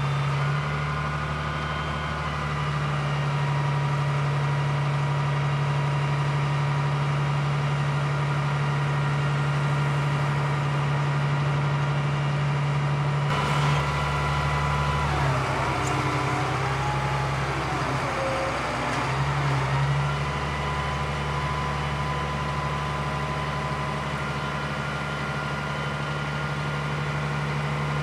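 Diesel engine of a Scania G 82 M turntable ladder truck running steadily while the ladder is worked and raised, with a whine that wavers up and down in pitch for a few seconds past the middle.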